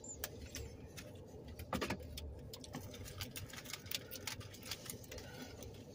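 Quiet eating sounds: scattered small clicks and crinkles from foil-wrapped burritos being handled and bitten, with a louder crackle about two seconds in. A low steady hum sits underneath.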